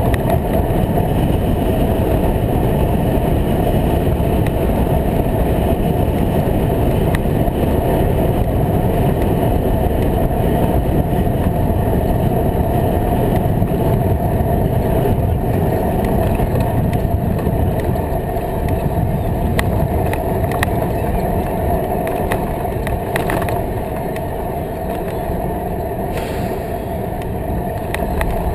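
Steady wind rush and tyre rumble of a bicycle riding a paved path, picked up by a bike-mounted GoPro, with a few small clicks and rattles.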